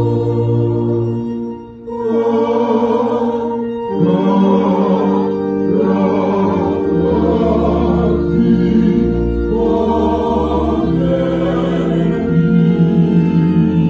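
Church choir singing, holding long notes, with a short break about two seconds in before the next phrase.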